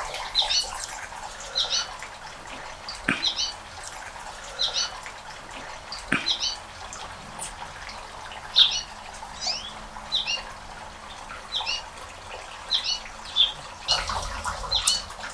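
Anna's hummingbird giving short, sharp chip notes, mostly in quick clusters of two or three, repeated about every second.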